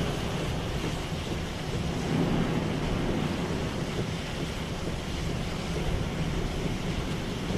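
Steady rush of hurricane wind and rain around a moving car, mixed with tyre noise on the wet road, heard from inside the car.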